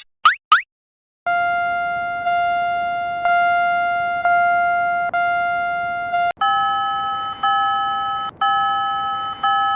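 Electronic level-crossing warning bell, a steady chime re-struck about once a second. Near the start two short rising whistles are heard, and about six seconds in, after a click, the chime switches to a higher note and keeps the same pace.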